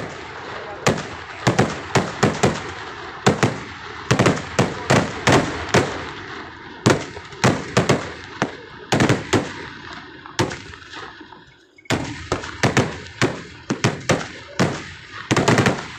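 Daytime fireworks: a rapid, irregular volley of aerial firecracker shells bursting overhead, sharp bang after bang, with a brief lull about three-quarters of the way through.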